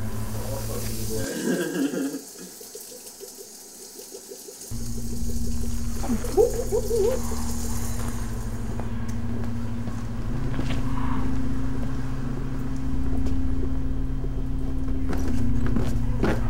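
A low, steady mechanical drone that drops out for about three seconds near the start, then comes back and keeps going. There is a brief warbling sound about six seconds in.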